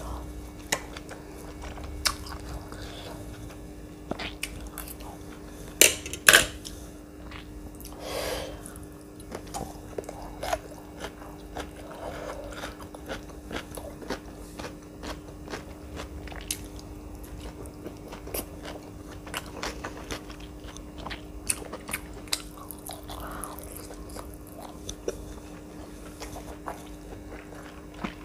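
Close-up eating sounds of a person biting and chewing saucy fried chicken strips: wet, sticky chewing with frequent small clicks and crunches. There are two sharp, loud clicks about six seconds in, and a faint steady hum underneath.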